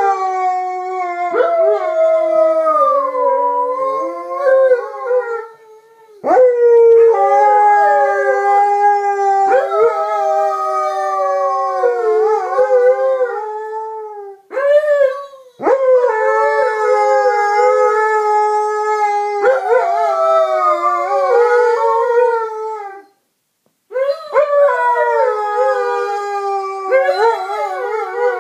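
Two Alaskan malamutes howling together: long, wavering howls lasting several seconds each, their voices overlapping at different pitches, broken by a few short pauses.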